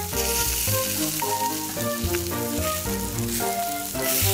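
Oil and fat sizzling on glowing charcoal under a whole lamb roasting on a spit as it is basted, a steady hiss. A light melodic background tune plays over it.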